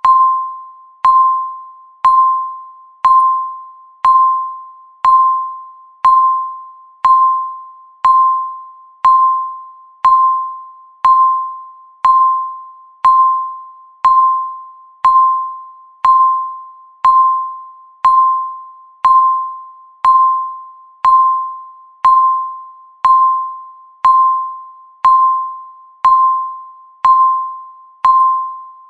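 Countdown timer's electronic beep, one short ringing tone about a second apart, each striking sharply and fading away before the next: a tick marking every second of the countdown.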